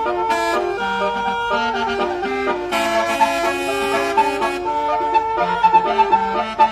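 Basuri telolet horn, a multi-trumpet vehicle horn, playing a melody of held notes that step up and down in pitch over a steady high drone note. A bright hiss joins about three seconds in for over a second.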